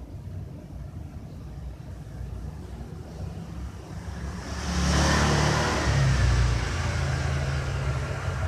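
A motor vehicle's engine rumbling, swelling sharply about four and a half seconds in and staying loud.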